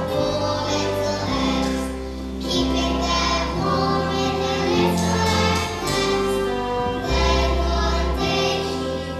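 Group of children singing a stage song together over instrumental accompaniment, with held bass notes changing about once a second.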